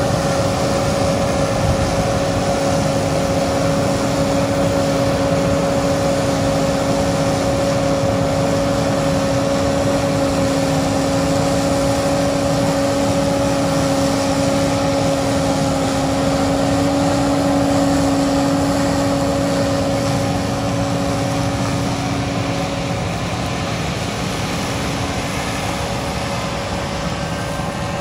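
John Deere 9500 combine harvester running steadily while harvesting wheat: a constant mechanical drone with a steady two-note hum, the lower note dropping away near the end.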